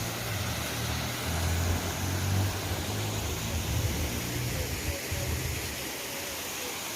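Rushing river water as a steady hiss, with wind buffeting the microphone in an uneven low rumble.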